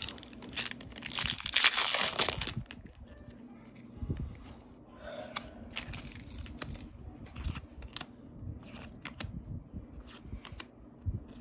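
Wrapper of a Topps Update baseball card pack torn open and crinkled for about the first two and a half seconds, then quieter scattered clicks and rustles of the cards being flipped through in the hands.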